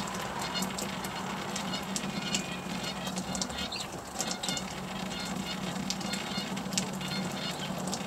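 House sparrows chirping, many short, sharp chirps repeated irregularly, over a steady low hum.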